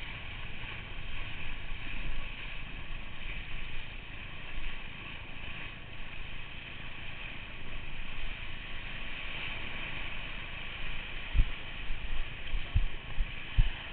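Wind rushing over the microphone together with the hiss of water spray and wake from a windsurf board planing across choppy water. A few short, low thumps come near the end.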